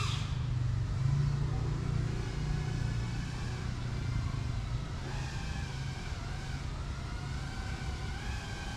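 FPV racing quadcopter's motors and propellers whining in flight, the pitch wavering up and down with the throttle, over a steady low rumble.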